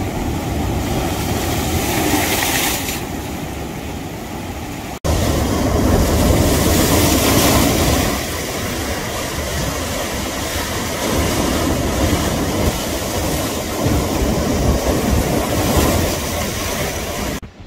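Sea surf breaking and washing over rocks, a steady rushing roar, with wind rumbling on the microphone. It is loudest for a few seconds after a brief dropout about five seconds in.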